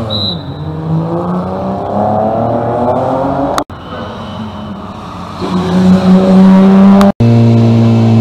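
Rally car engines: one revs up with rising pitch, then after an abrupt break another engine grows louder as a car approaches, and after a second abrupt break at about seven seconds a car engine idles steadily close by.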